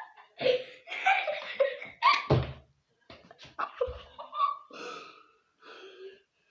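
People laughing, with bits of talk among the laughs.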